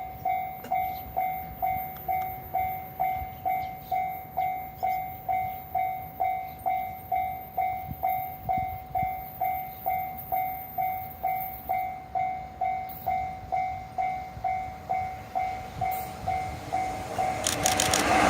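Japanese level-crossing warning bell dinging steadily at just under two strikes a second. Near the end the noise of the approaching train, led by an EF66 electric locomotive, swells up under it.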